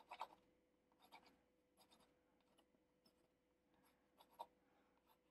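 Very faint scratching of a pencil drawing short strokes on a stretched canvas, a stroke every second or so, over a faint steady hum.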